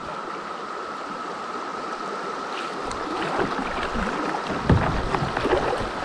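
Shallow creek riffle rushing around a kayak, with paddle splashes and knocks growing louder in the second half and one sharper knock about three-quarters of the way in. Underneath runs the steady high drone of a Brood X periodical cicada chorus.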